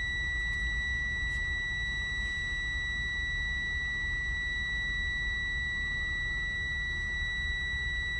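Electronic warning buzzer holding one steady high-pitched tone without a break, over a low steady rumble.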